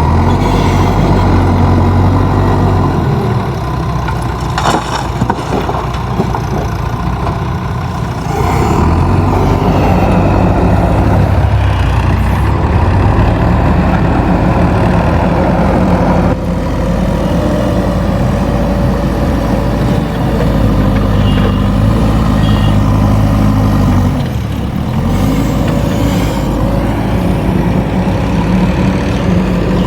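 JCB backhoe loader's diesel engine working under changing load, its pitch and level stepping up and down every several seconds as the loader digs and dumps. A few short knocks are heard.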